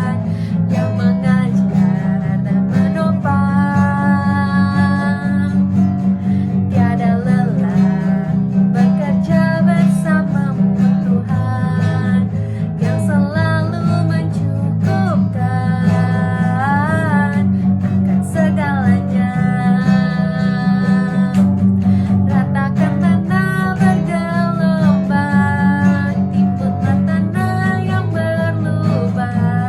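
Praise-song music led by acoustic guitar, with a strong, steady bass and a melody of long held notes that waver in pitch.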